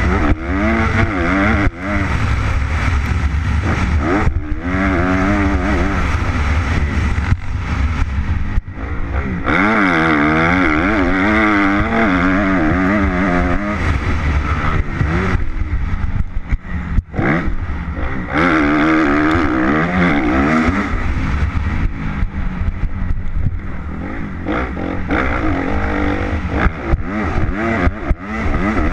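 2013 Kawasaki KX250F's single-cylinder four-stroke engine revving up and down as the rider works the throttle around a motocross track, with the pitch dropping sharply a few times as the throttle is shut off and then climbing again.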